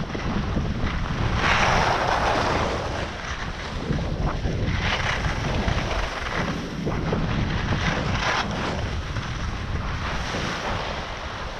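Wind buffeting the microphone of a helmet-mounted action camera on a skier going downhill, a steady low rumble. Over it comes the hiss of skis scraping across packed snow in turns, swelling loudest about two seconds in and again around five and eight seconds.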